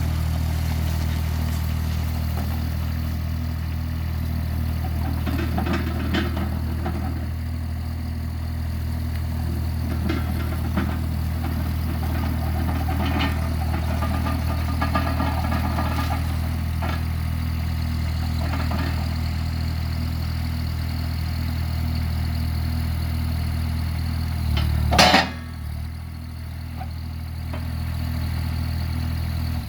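Ditch Witch mini skid steer's engine running steadily at idle, with scattered rattles and clanks. One loud bang comes near the end, after which the engine sound dips briefly before settling back.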